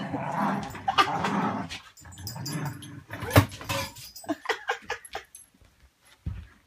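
Dogs growling in play while tugging a stuffed toy, with a sharp knock midway, then a quick run of short, high yips.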